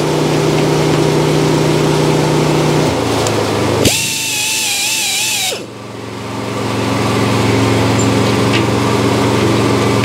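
Handheld saw-sharpening grinder running steadily on the steel teeth of an inserted-tooth circular sawmill blade. From about four seconds in, a higher, wavering grinding sound for a second and a half as the stone works a tooth; the motor then dips and builds back up.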